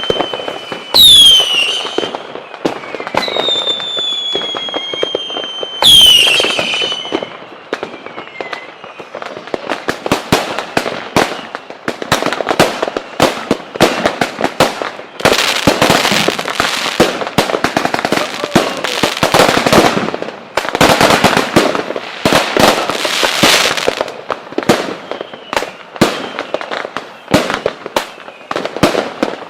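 Fireworks. About a second in and again about six seconds in, a sharp burst sets off a high whistle that slowly falls in pitch. After that comes a dense crackle of rapid pops, swelling into louder waves.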